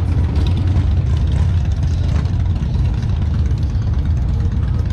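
Motorcycle engines idling, a steady low sound.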